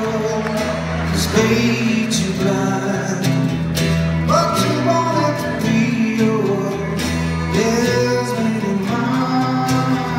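Live acoustic rock: strummed acoustic guitar and bowed cello, with a man singing over them.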